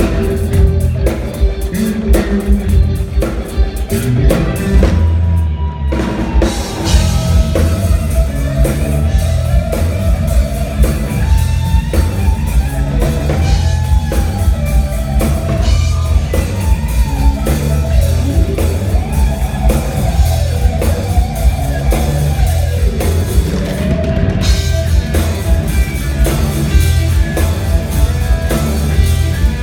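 Rock instrumental: an electric guitar plays a lead line full of bent, sliding notes over a steady drum kit beat. The cymbals drop out briefly twice, about five seconds in and again near the end.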